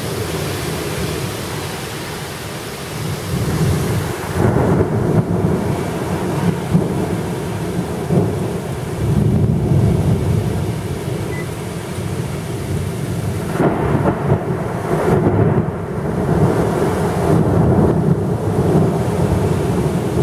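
Thunderstorm at night: heavy rain hissing steadily, with thunder rumbling and swelling again and again.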